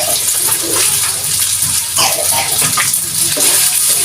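Pasta frying in butter in a thin pan, a steady sizzling hiss.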